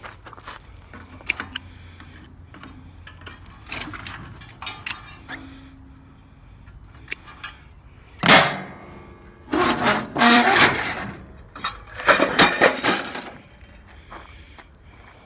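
Metal parts of a pool heater being knocked and pulled apart: scattered light clinks and knocks, then a sharp loud hit with a short ring and two longer, louder clattering stretches in the second half.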